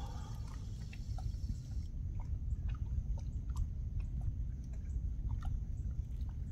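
Steady low rumble of open-air background noise with faint, irregular small clicks and ticks scattered through it.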